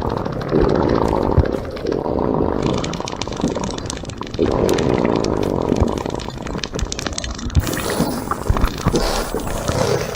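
A person making a run of loud, raspy bodily noises, burps and farts, several long ones in a row, each lasting one to two seconds with short breaks between.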